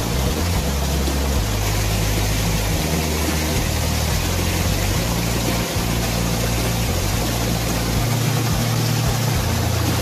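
Water rushing and splashing as it pours down into a concrete drainage ditch: a loud, steady hiss of falling water.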